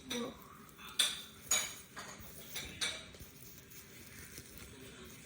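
Hard pieces of an unboxed costume accessory clinking and knocking as they are handled and pulled at, about five sharp knocks in the first three seconds, then quieter handling.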